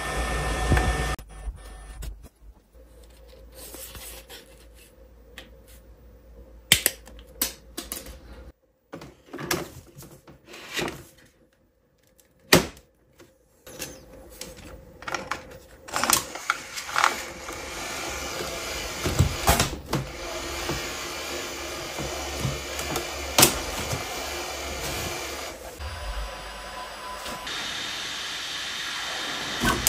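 Bambu Lab A1 3D printer and its AMS lite filament feeder: scattered clicks and knocks as filament is worked into the feeder by hand, then from about halfway the printer's motors running steadily with repeated mechanical clicks as filament is fed to the toolhead.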